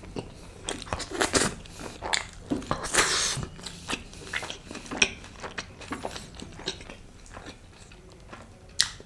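Close-miked chewing of a mouthful of white (chitta) butter chicken, with many quick mouth clicks, busiest in the first half, and one louder click near the end.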